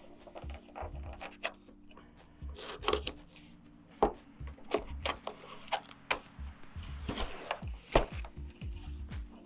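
A keyboard's cardboard retail box being opened and its packaging handled: irregular knocks, scrapes and rubbing of cardboard and packing, with a few sharper knocks about four, seven and eight seconds in.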